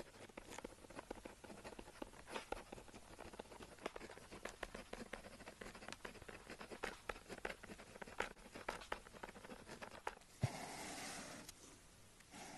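Pen tip scratching on paper in quick, irregular strokes and taps. About ten seconds in there is a sharp knock, then about a second of steady rustling.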